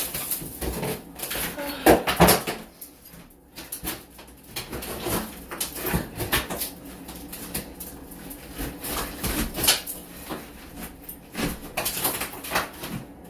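Irregular knocks, cracks and scraping of cement board and tile being pried and broken off a wall, the loudest hits about two seconds in. The board is screwed on and resists coming off.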